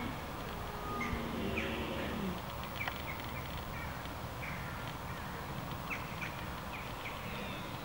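Birds calling with repeated short, falling chirps, and about a second in a red deer stag gives one low, drawn-out roar that drops in pitch as it ends.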